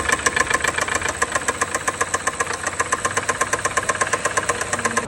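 Rolls-Royce Cullinan's twin-turbo V12 running with a loud, rapid metallic knock, about ten knocks a second. The mechanic traces the knock to a piston in cylinder 7 that overheated and seized, with scuffed skirts.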